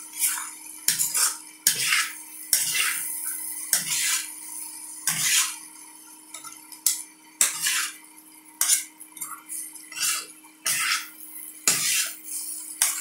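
A metal spatula scraping and tossing strips of frying potato around a frying pan, in irregular strokes about once a second.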